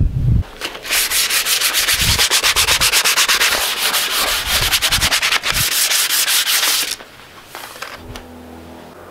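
A cloth rubbed quickly back and forth along a bare ash axe handle, a rhythmic hissing scrub of several strokes a second. It stops about seven seconds in.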